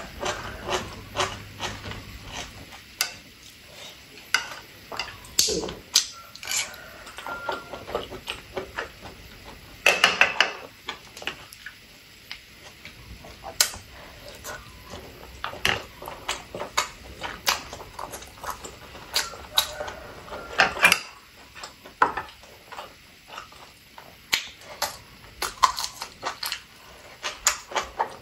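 Close-miked eating sounds: a person chewing with wet smacking and many sharp, irregular clicks as she eats noodles, sausages and meatballs, with a few louder crunchy bursts, one about ten seconds in.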